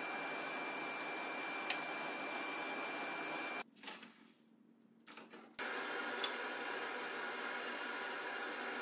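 Sliding-table panel saw and its dust extraction running steadily with an even whir and a faint high whine. About three and a half seconds in, the noise cuts out to near silence for about two seconds, then comes back at the same level.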